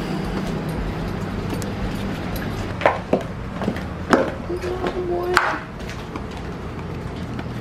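Footsteps of sandals and flip-flops on metal diamond-plate stairs: a few sharp slaps and clanks in the middle, over a steady low hum. A brief voice-like sound comes near the middle.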